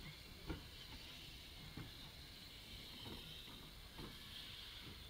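Great Western No. 1340 'Trojan', a small Avonside 0-4-0 saddle-tank steam locomotive, moving slowly: soft exhaust chuffs about once a second over a faint steady hiss of steam.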